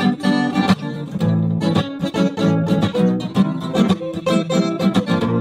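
Guitar-led music, plucked and strummed, with a steady beat; an instrumental stretch between sung lines.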